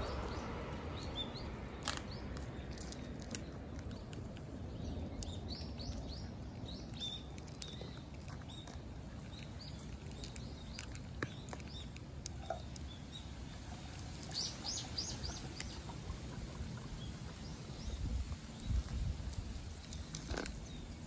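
A tuxedo cat chewing dry kibble, with irregular small crunches. Small birds chirp in a few short runs in the background.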